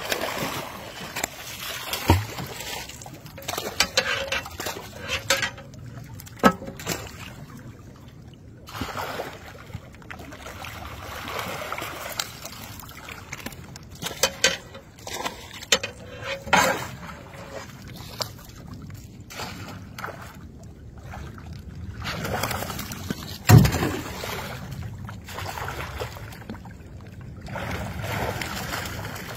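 Water splashing and sloshing as a landing net is dipped among crowded catfish thrashing at the surface, in irregular surges. A few sharp knocks stand out, the loudest near the end.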